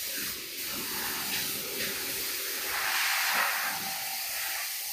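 Compressed-air blow gun hissing in a continuous blast, louder about three seconds in.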